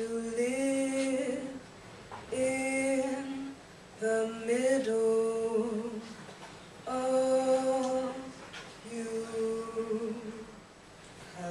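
A woman singing unaccompanied into a microphone: five slow phrases of long held notes, each lasting a second or so, with short pauses between them.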